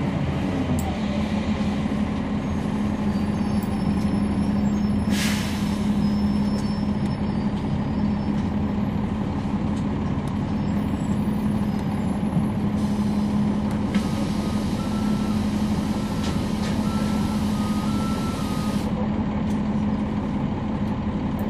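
Cabin sound of a 2011 NABI 40-SFW transit bus, its Cummins ISL9 diesel running at a steady speed with an even low hum. A short burst of air hiss comes about five seconds in. A longer hiss with faint beeping runs from about two-thirds of the way through until shortly before the end.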